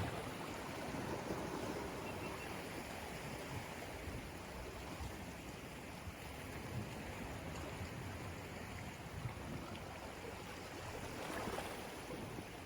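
Sea waves washing on the shore: a steady rush of water that swells a little about a second in and again near the end.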